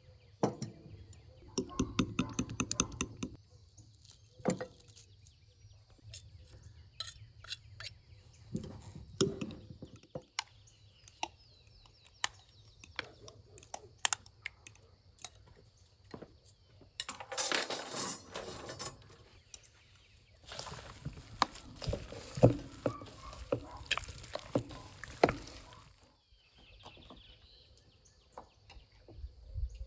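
Metal spoons clinking and scraping against a glass bowl and a stainless steel bowl as mustard and sour cream are spooned out, with a quick run of sharp clicks near the start. Later come longer stretches of wet, noisy handling as the sour cream sauce is poured over chunks of boiled beef tongue and mixed in by hand.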